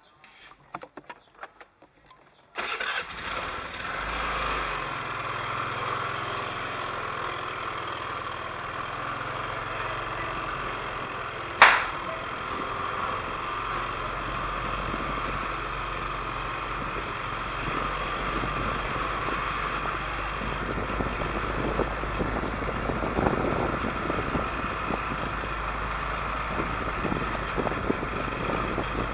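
A vehicle's engine comes in suddenly about two and a half seconds in and then runs steadily. There is one sharp click or knock near the middle.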